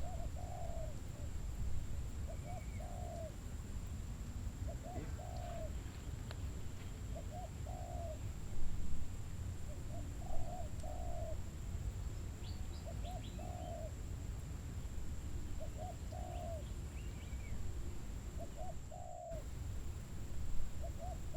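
A bird calling over and over: a short two-note call repeated about every two seconds, over a steady low background rumble.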